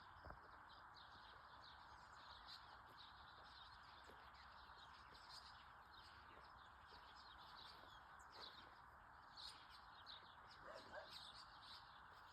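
Faint birds chirping, many short high calls, over a steady background hiss.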